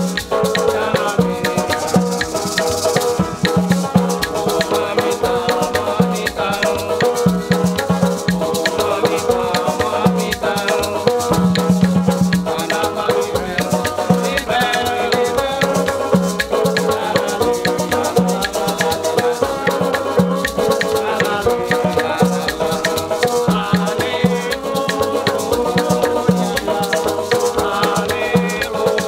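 Haitian acoustic band playing live: banjo and acoustic guitar strummed over a steady maraca shake, with a pulsing bass note and men singing along.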